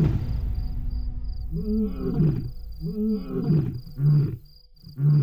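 Male lion roaring: two long roars that rise and fall in pitch, followed by a run of shorter grunts about a second apart.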